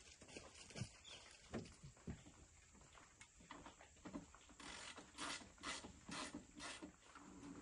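Faint clicks and knocks of a steel angle-iron solar panel mount being handled and adjusted, with a run of sharper knocks about two a second in the second half.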